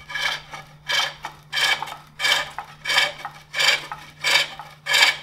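Hook tool cutting the inside of a wooden bowl on a foot-powered pole lathe: a rasping scrape on each downstroke of the treadle, about three every two seconds, with quieter gaps as the work turns back between cuts.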